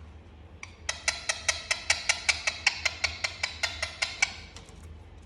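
Indian ringneck parrot making a rapid run of kissing smacks, about five a second, starting about a second in and stopping a little after four seconds.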